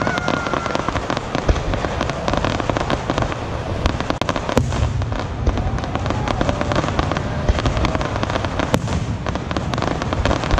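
Aerial fireworks display: a dense, unbroken run of shell bursts, bangs and crackling, several reports a second.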